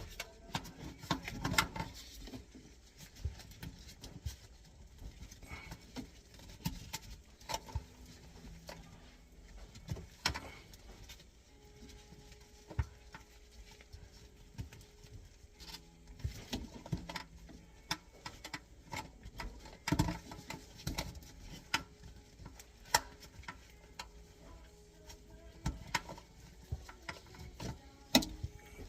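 Irregular clicks, taps and knocks of plastic P-trap pieces and slip nuts being handled and fitted together.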